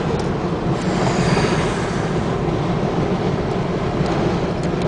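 Steady low rumble of a vehicle running, with an even noise and no sharp changes.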